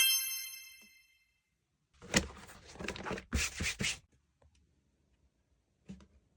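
A bell-like chime fading away over the first second, then about two seconds of irregular knocks and scuffs of handling, ending in quiet with one short knock near the end.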